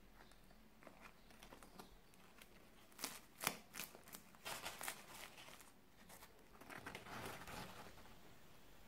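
Faint crinkling and crackling as crisp fried dough sticks are handled and pressed by hand on a paper napkin, in short spells about three seconds in, around five seconds, and again near seven seconds.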